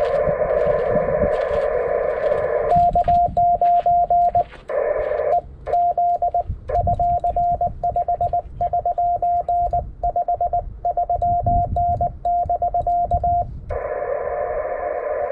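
Amateur radio transceiver in Morse code (CW) operation. First the receiver's filtered hiss, then from about three seconds in a steady beeping sidetone keyed on and off as the operator sends Morse code, with short breaks where the hiss comes back. The receiver hiss returns near the end.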